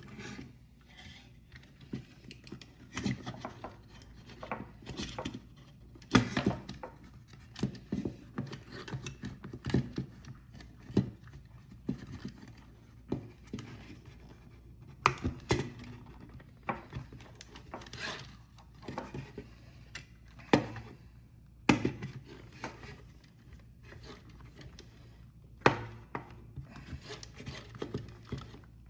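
Hands working a new rubber tire onto a Roomba's plastic drive wheel: irregular clicks, taps and rubbing of rubber and plastic, with a few sharper knocks.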